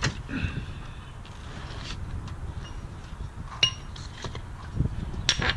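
Light metallic clinks and taps of hand tools and bolt hardware being handled under a car, with a sharper ringing clink about three and a half seconds in and another near the end.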